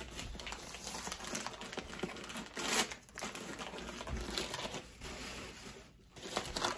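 White wrapping crinkling and rustling as it is handled and pulled off a package, in irregular crackles with brief lulls.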